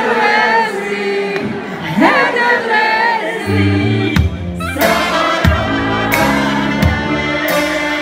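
Live Balkan brass-band music: two women sing a wavering folk melody together, then about halfway through a tuba bass line and steady bass-drum beats come in under the voices and brass.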